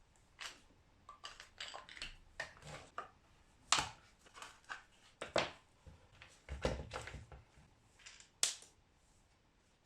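Irregular sharp clicks and knocks of hard plastic as the housing of a KVT TT-2000 heat gun is handled and taken apart, with the loudest knocks about four and five and a half seconds in.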